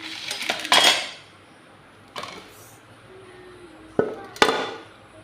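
Dishes and cutlery clattering and clinking in a kitchen: a short run of clatter about half a second in, one knock near two seconds, and two sharp knocks near the end.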